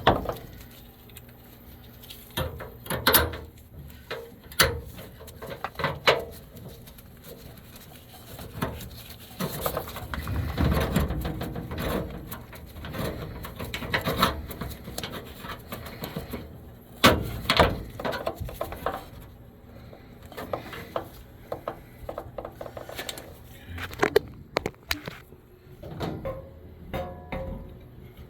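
Hands and tools working on an air-conditioning unit during a capacitor replacement: irregular clicks, knocks and rattles.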